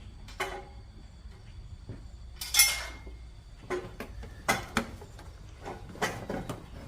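Metal clinks and clanks of tools and exhaust header parts being handled during a header install, about seven separate knocks. The loudest comes about two and a half seconds in and rings briefly.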